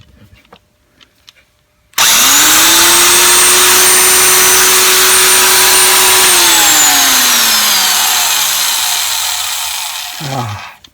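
Vintage Thor quarter-inch electric drill test-run after rewiring: about two seconds in its motor starts with a sudden, loud steady whine, holds for about four seconds, then winds down with the pitch falling as it coasts to a stop.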